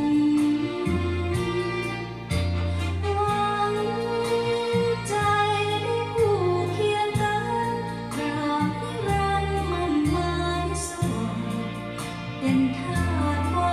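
Recorded music with singing played back through Bose 301 Series IV bookshelf speakers driven by a Luxman L-114A integrated amplifier, with a bass line of held notes and steady percussion.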